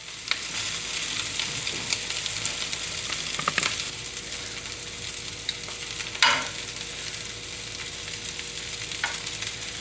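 Pork and vegetable stir-fry sizzling steadily in a hot frying pan with the heat turned off, with a few light sharp clicks scattered through it.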